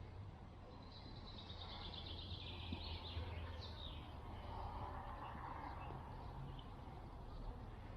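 A small bird singing: a quick trill of high notes stepping downward, then a short chirp, over a faint steady low rumble.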